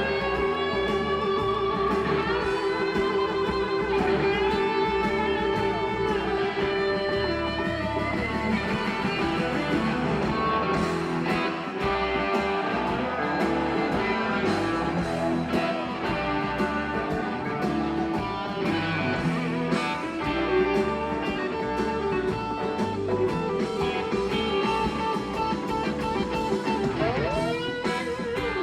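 Live blues-rock band playing an instrumental passage, electric guitar leading over bass and drums, its notes bending and gliding in pitch. A single note repeats steadily for the first several seconds before the lead opens up.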